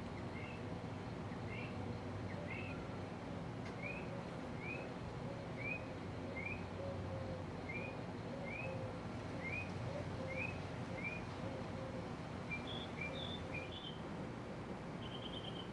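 Steady low hum of a Fasco ceiling fan running, under a series of short rising chirps that come about once a second, changing to a few higher chirps near the end.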